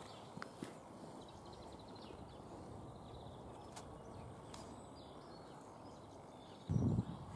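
Breeze on the microphone as a steady low rumble, with a few faint clicks and a short dull low thump near the end.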